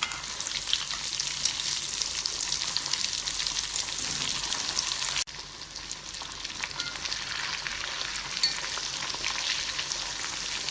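Whole pomfret deep-frying in hot coconut oil: a steady, dense sizzle full of small crackling pops. It breaks off suddenly about five seconds in, then carries on a little quieter.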